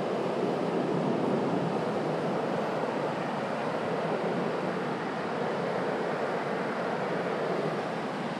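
Steady rushing noise of surf breaking on the shore, mixed with wind.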